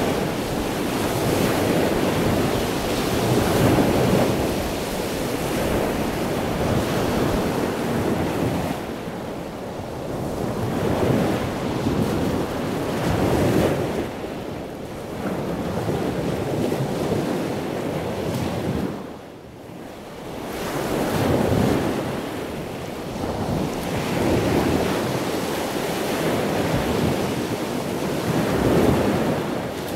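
Heavy ocean surf and wind: a dense rushing noise that swells and fades every few seconds, with wind buffeting the microphone. It drops to a short lull about two-thirds of the way through.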